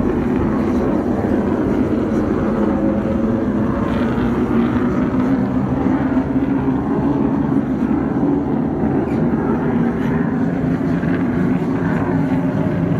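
Steady, unchanging rumble on the flight deck of an aircraft carrier under way, with no single event standing out.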